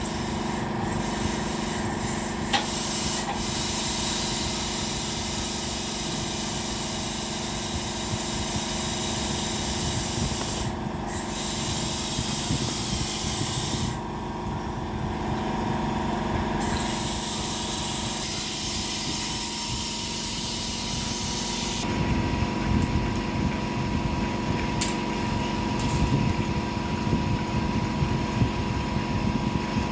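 Dental drill and suction working on teeth: a steady hiss and hum, with a very high whine that comes and goes, loudest for a few seconds at the start and again in the middle.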